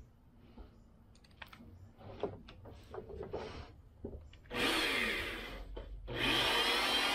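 Corded electric drill driving screws into a wooden boat seat: faint clicks and taps of handling at first, then the drill runs briefly about four and a half seconds in, stops for a moment, and starts again, running steadily to the end.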